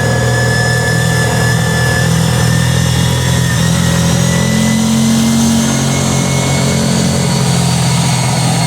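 ATV engine running steadily while riding, briefly picking up a little in pitch about halfway through.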